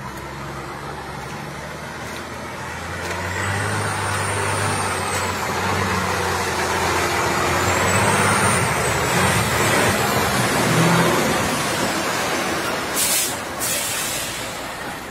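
Diesel engine of a semi tanker truck running as the truck crawls past through mud, growing louder as it comes close. Near the end come two short hisses of compressed air from its air brakes.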